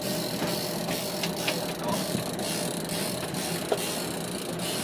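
Fishing reel being cranked, its gears and pawl ticking, over a steady rushing background noise.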